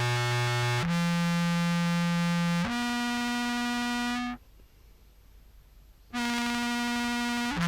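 Contrabass clarinet played through fuzz pedals, giving a buzzy, synth-like distorted tone: long held notes that step to a new pitch every couple of seconds, with a break of about two seconds a little past the middle before another long note.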